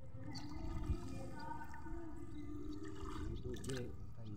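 Shallow water sloshing around a wader's legs as a fishing net is paid out by hand, with a low wavering hum throughout.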